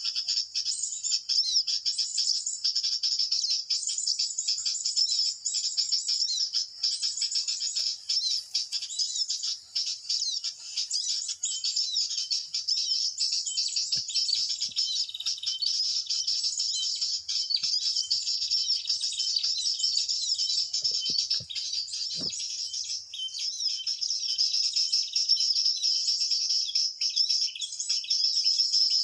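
Small songbird chirping in a rapid, unbroken stream of high notes, with a few faint knocks about halfway through and again about three quarters of the way in.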